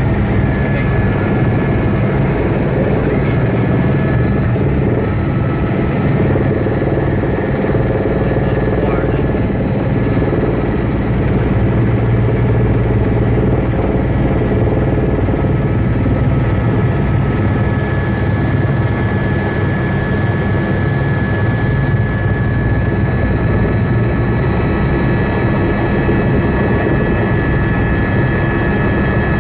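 Helicopter in flight, its engine and rotor making a loud, steady drone with a thin constant whine above it.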